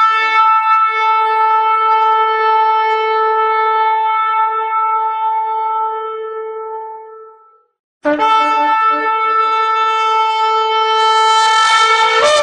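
A horn blown in two long, held blasts. The first starts on a lower note, settles higher and fades out after about seven seconds. After a short gap the second begins and jumps up to a higher note near the end.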